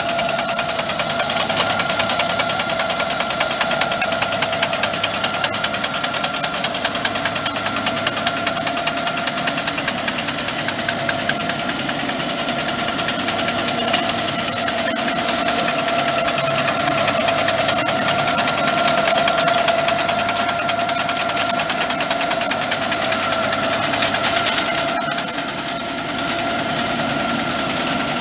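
Rigitrac SKH95 tractor's diesel engine running steadily under load, driving a boom-mounted Mense RP 8L rotary clearing shear cutting scrub. A steady high whine rides over the fast engine pulse, with a short drop in level near the end.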